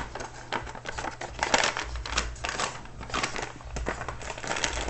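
Small plastic baggies of diamond-painting drills being handled and shuffled: crinkling plastic with irregular small clicks and rattles.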